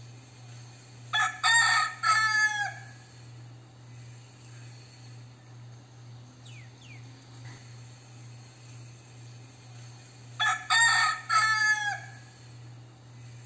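Crossbred gamecock rooster crowing twice, about nine seconds apart. Each crow is a short first note followed by two longer ones, the last trailing off downward.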